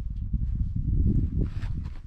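Wind buffeting the microphone: an uneven low rumble that swells and dips, strongest around the middle.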